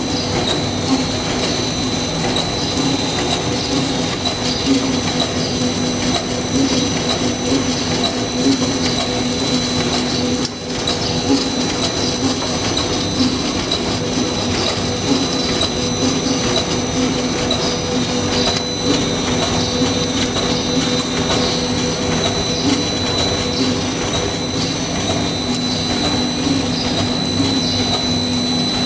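A two-side-seal plastic bag making machine running: a steady mechanical hum with a steady high whine over it.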